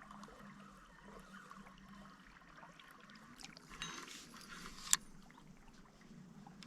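Faint river water lapping and trickling, with a brief rushing swish about four seconds in and one sharp click just before five seconds.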